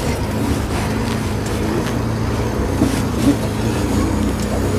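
Sisu off-road truck's diesel engine running steadily, heard from inside the cab.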